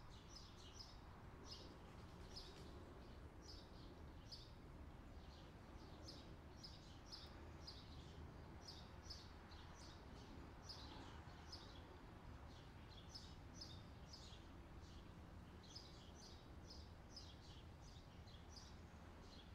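Faint, continuous chirping of small birds, several short chirps a second, over a low steady hum.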